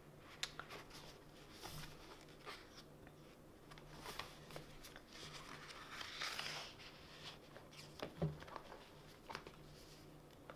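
Faint paper rustling and light taps from a paper planner being handled and its pages turned, with a soft swish about six seconds in.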